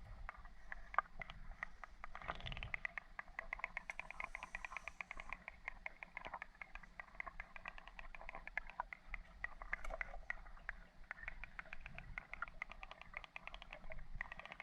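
Underwater ambience heard through a submerged camera: a dense, continuous crackle of tiny clicks, many a second, over a faint low rumble.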